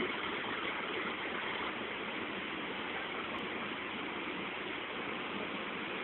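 Steady, even rushing of Nohkalikai Falls and the cascades beside it, heard from the clifftop across the gorge.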